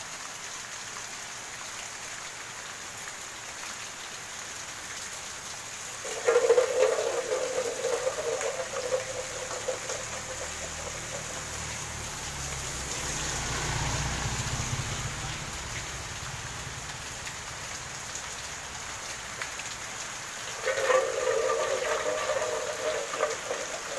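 Steady rain falling on roofs and a wet lane. A low rumble swells and fades around the middle, and a sustained pitched tone sounds twice, about six seconds in and near the end.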